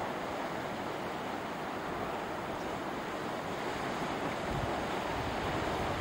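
Ocean surf washing over rocks and a cobble shore, a steady rushing wash, with wind buffeting the microphone in a low rumble that grows stronger about two-thirds of the way through.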